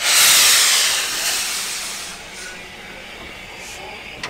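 Steam locomotive No. 48305, an LMS Stanier 8F 2-8-0, moving slowly past with a loud rush of hissing steam. The hiss starts suddenly and fades over two or three seconds to a lower steady hiss.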